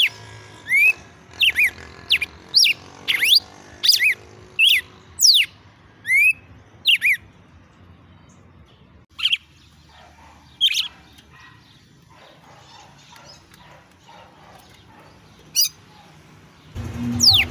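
Red-cowled cardinal singing in a run of short, sharp whistled notes that sweep quickly up and down, close together at first and then only a few scattered notes. Background music comes in near the end.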